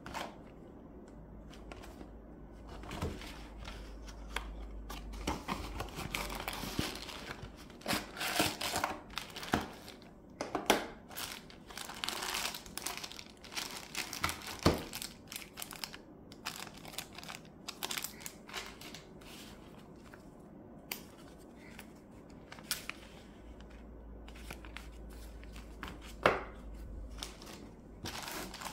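Packaging being handled and opened: irregular crinkling and rustling of plastic and cardboard, with a few sharp clicks and knocks along the way.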